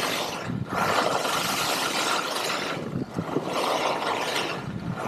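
Skis carving on firm groomed snow: a loud scraping hiss that swells through each turn, with brief lulls about half a second and three seconds in between turns.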